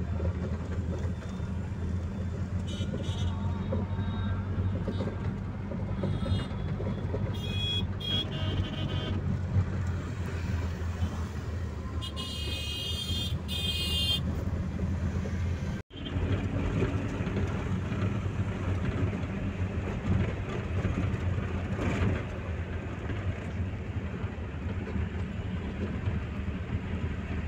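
Steady low rumble of engine and road noise heard from inside a moving car in traffic, with other vehicles' horns honking several times through the first half, including a quick series of toots around twelve to fourteen seconds in. The sound cuts out for a moment about sixteen seconds in, then the same rumble resumes.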